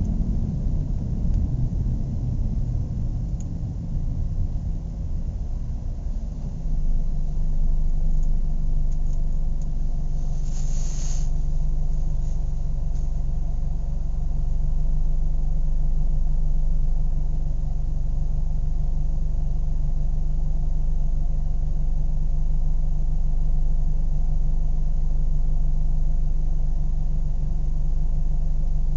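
Car engine idling with a steady low rumble, settling into an even, slightly louder hum about six and a half seconds in. A brief high hiss sounds a few seconds later.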